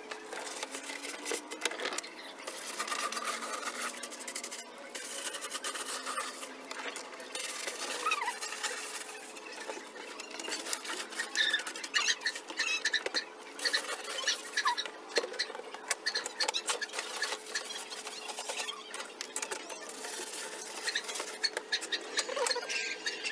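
Plastic pet carrier with a wire grille door being handled and scrubbed: irregular clattering, rattling and rubbing of plastic and wire.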